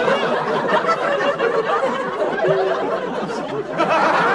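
Audience laughing, many voices at once, swelling louder near the end.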